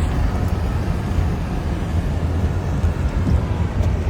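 Steady low rumble of strong wind buffeting the microphone.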